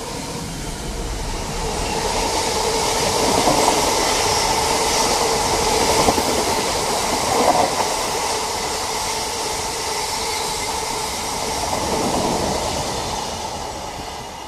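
Class 66 diesel freight locomotive passing beneath, followed by a long train of empty open box wagons rumbling and rattling over the rails. The noise builds over the first couple of seconds, holds steady, then fades near the end as the last wagons draw away.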